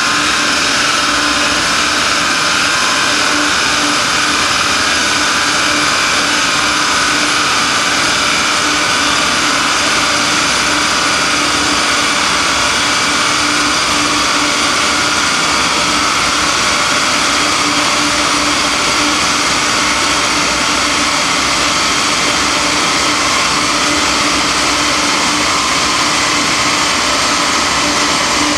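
Steady loud whirring roar at a chassis dynamometer. It comes from the big cooling fan and the diesel Audi A4 1.9 TDI running on the dyno rollers. It holds nearly constant, with a slight slow drop in pitch.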